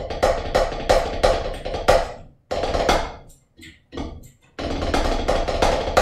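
Drumsticks on a rubber practice pad playing a rudimental snare solo: fast rolls with accents about three times a second. About two seconds in they thin to a few scattered strokes, then fast playing resumes and ends on a loud accent.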